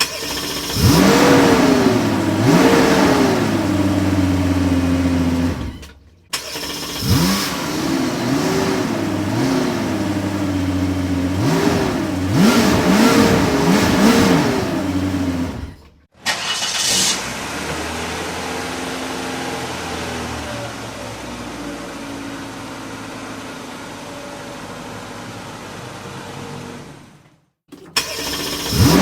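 Car engine revved repeatedly, its pitch rising and falling with each blip, with an engine starting up at the very beginning. After two short breaks the last part is a steadier, quieter engine run.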